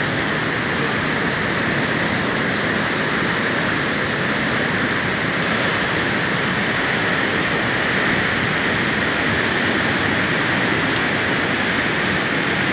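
Steady roar of sea surf, an even wash of noise with no breaks or changes.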